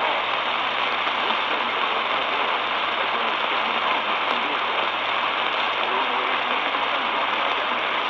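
Steady hiss of static from an Eton Elite Traveler portable radio tuned to 1260 kHz on the AM (medium wave) band.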